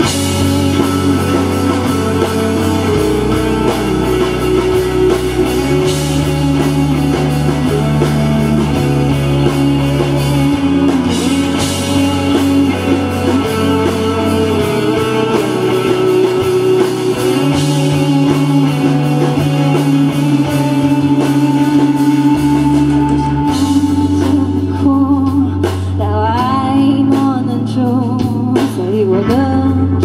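Live rock band playing a song: electric guitar over an electric bass line that changes note every few seconds.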